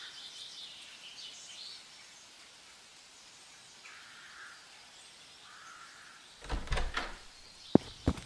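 Quiet outdoor background with faint bird chirps. About six and a half seconds in comes a clatter and then sharp clicks as the metal bolt of a wooden front door is drawn back and the door is opened.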